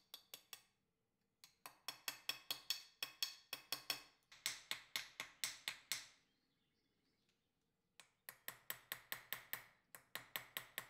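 Light, quick hammer taps on a punch, driving a wire inlay down into the groove of a steel sword blade. The taps come in runs of about five or six a second, each with a short metallic ring, with a pause of about two seconds past the middle.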